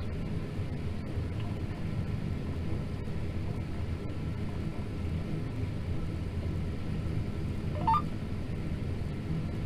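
John Deere T670i combine harvester running steadily while cutting barley: a continuous low rumble, heard from inside the cab. A brief rising chirp cuts through about eight seconds in.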